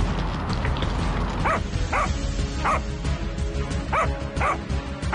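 A dog barking, six short barks starting about a second and a half in, over background music.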